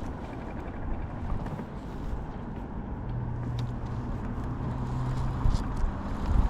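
Wind rumbling on the microphone. A low steady hum comes in about three seconds in and stops about two and a half seconds later.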